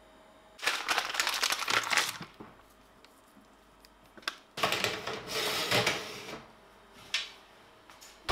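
Hand spice grinder cracking chili flakes: two bursts of fast crackling grinding, each about a second and a half long, followed by a single click near the end.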